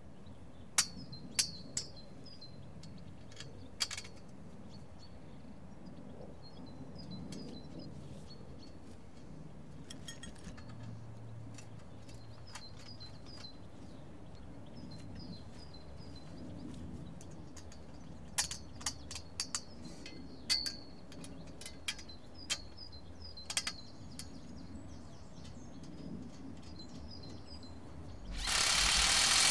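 Sharp metallic clicks, scattered and a few at a time, as steel P-clips and a nut and bolt are handled against a polytunnel's steel hoop, over a low outdoor background with small birds chirping. Near the end a loud rasping noise lasts about a second.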